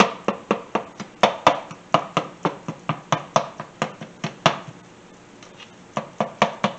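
Plastic spatula chopping and scraping through ground pork in a nonstick frying pan, breaking the meat into crumbles as it browns. The quick, even taps come about four a second, stop for over a second around the middle and then start again.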